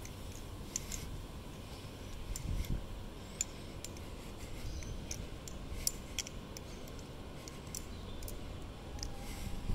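Glidr Sahara clone balisong being flipped: irregular sharp clicks and clacks as the metal handles and blade swing and knock together.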